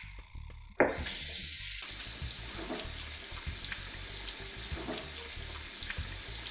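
Kitchen faucet running into a stainless steel sink while hands are washed under the stream, the water splashing off hands and steel. It comes on abruptly about a second in, brightest at first, then runs steadily.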